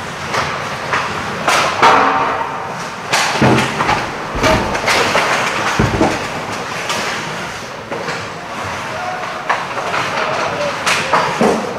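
Live youth ice hockey play heard from rinkside: skates scraping the ice, with repeated sharp clacks and thuds from sticks, puck and players hitting the boards.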